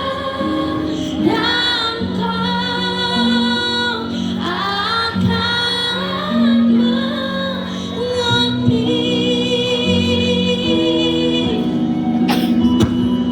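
School choir singing long held notes over instrumental accompaniment. A couple of sharp knocks come near the end.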